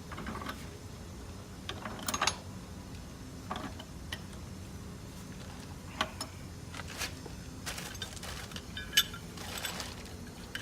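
Pipe wrench tightening a brass gas-valve fitting onto threaded pipe: irregular metal clicks and clinks as the wrench jaws grip and are reset, with a few sharper clacks.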